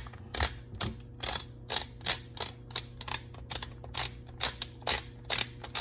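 Repeated sharp mechanical clicks, about two to three a second at uneven spacing, as a part is worked off a Benelli Super Black Eagle 3 shotgun during disassembly.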